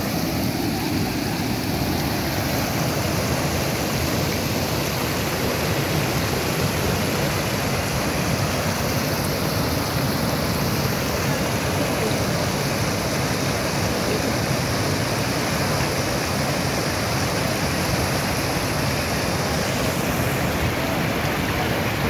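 Swollen, muddy floodwater rushing over a rocky waterfall and churning through rapids, a steady, loud rush of water.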